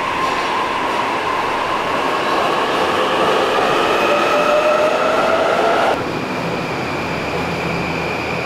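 Narita Express electric train moving along an underground platform, its motor whine rising in pitch as it gathers speed over rolling noise. About six seconds in the sound cuts abruptly to another electric train, an E235 with a double-decker car, rolling past with a steady high whine.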